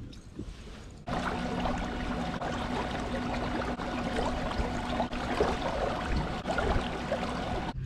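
Water splashing and trickling along a kayak's hull as it moves, with a steady mechanical hum under it. This starts abruptly about a second in, after a quieter opening.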